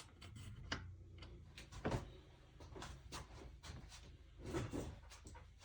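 Scattered knocks and clatter of tools and metal parts being handled on a workbench, over a low hum. The loudest knock comes about two seconds in, with another cluster about four and a half seconds in.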